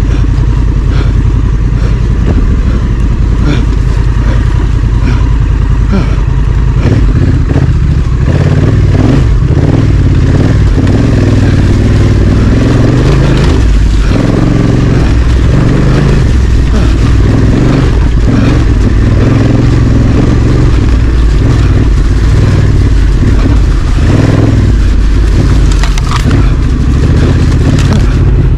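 Honda Africa Twin CRF1100's parallel-twin engine running loudly as the bike is ridden off-road, with many short knocks over roughly the first eight seconds.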